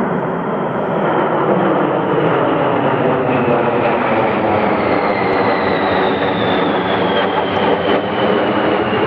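A formation of three military jet fighters flying overhead: a loud, steady jet roar with a high whine that slowly falls in pitch as they pass.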